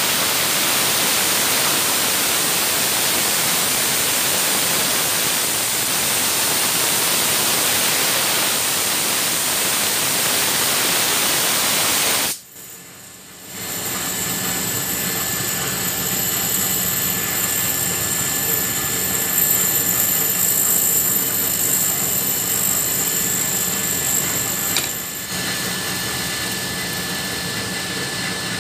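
Ball bearing spun by a compressed-air jet at about 7 bar: a loud, steady rush of blowing air, which cuts off abruptly about twelve seconds in. After a short lull comes a steady, high, jet-engine-like whine of the bearing spinning at very high speed.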